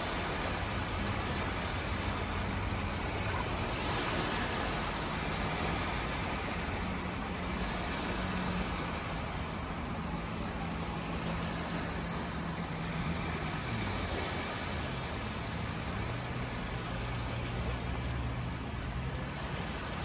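Shallow surf washing in over a flat sandy beach, a steady even rush of water. Underneath runs a low engine hum whose pitch dips a little past the middle and then steadies.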